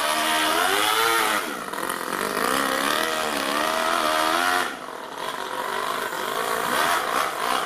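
Toyan FS-L200 two-cylinder four-stroke overhead-cam nitro model engine running in an RC car, its revs rising and falling repeatedly as the throttle is worked. There is a brief drop in revs and loudness a little under five seconds in, then it picks up again.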